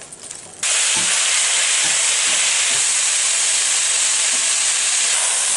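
Chunks of beef searing in hot oil in a pot: a loud, steady sizzle that starts abruptly about half a second in, with a few faint knocks.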